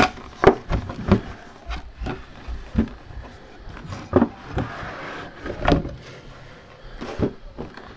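Cardboard mini-helmet box being handled and pulled open, with a string of separate knocks and clicks and a stretch of scraping in the middle as the helmet in its plastic display case is worked out of the box.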